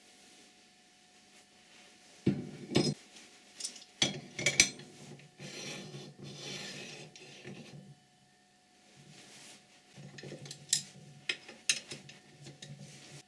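Steel parts clinking and scraping against each other as they are handled and fitted, in irregular clatters that start a couple of seconds in, pause briefly, then resume.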